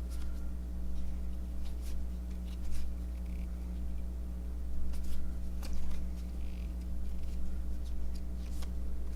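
Cardboard trading cards handled and flipped through one by one, with soft scattered flicks and slides of card stock against card stock. A steady low electrical hum runs underneath.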